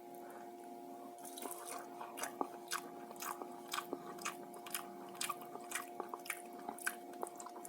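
Close-up chewing of soft white tofu: irregular wet mouth clicks and smacks, a few a second, over a faint steady hum.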